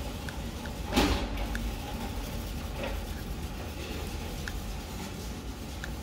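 Light taps on the front-panel keys of a Panasonic MINAS servo driver, with one louder knock about a second in and a few faint short blips, over a steady low hum.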